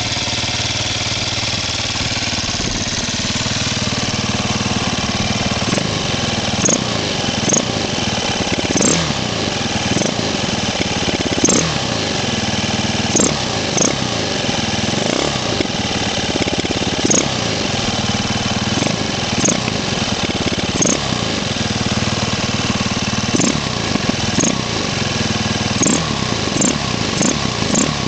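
A 2007 Husqvarna TE450's single-cylinder four-stroke engine idles, then is blipped up and down again and again. Many of the blips carry a short, high chirp, a noise whose cause the owner does not know.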